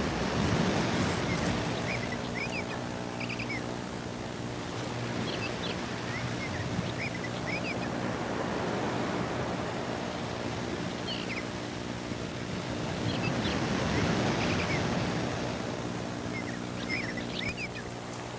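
Steady hiss with a low electrical hum from a security camera's audio recording, swelling and fading slowly, with faint, short high chirps scattered through it.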